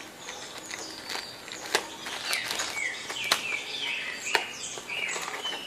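A small knife slitting open paper and plastic packaging, with sharp scratching clicks. From about two seconds in, a bird calls over and over in short falling chirps.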